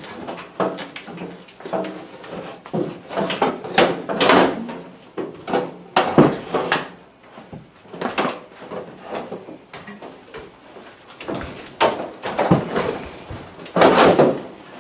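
Sheet-metal electric furnace cabinet being worked loose and shifted: irregular clunks, knocks and scrapes of metal against the floor and fittings, with a few louder, longer scrapes.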